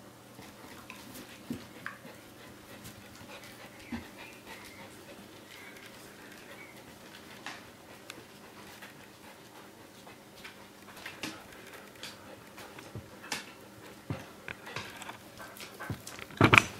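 Dogs panting, with scattered short clicks of claws on a tiled floor. Near the end comes the loudest sound, a short, dense burst from a dog close by.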